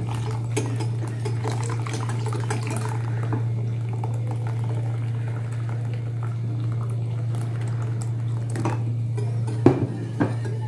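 Milk pouring into a bowl of cornflour and cocoa powder while a wire whisk stirs it, with liquid splashing and the metal whisk clicking against the bowl. Near the end come a few sharper knocks of the whisk on the bowl. A steady low hum runs underneath.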